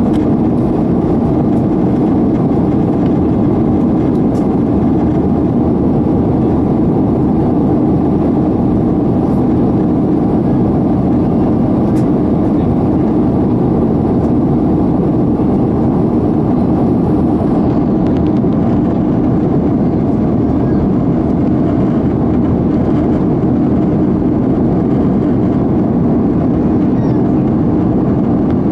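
Cabin noise of a jet airliner climbing after takeoff: a loud, steady rush of engines and airflow.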